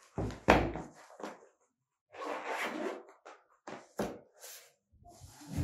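Handling noise from a clamp meter and its soft carry case: two sharp knocks near the start, rustling about two seconds in, and another knock about four seconds in as the case is set down on a box.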